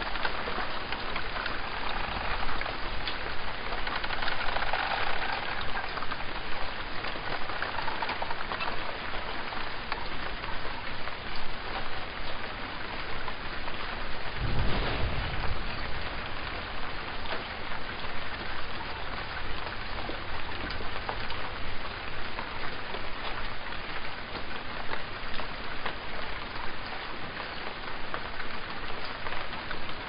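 Steady rain falling and pattering on surfaces, with a brief low rumble about halfway through.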